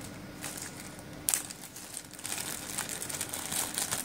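Clear plastic packing bag crinkling as it is handled, with one sharp crackle about a second in.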